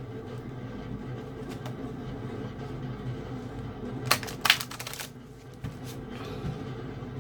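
A deck of tarot cards being handled and shuffled: scattered light clicks, then a brief loud riffle of cards about four seconds in, over a low steady hum.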